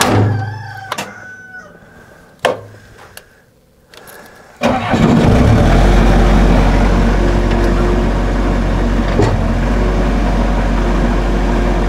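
A Bobcat skid steer loader's engine starts about four and a half seconds in, after a couple of clicks, and then runs steadily.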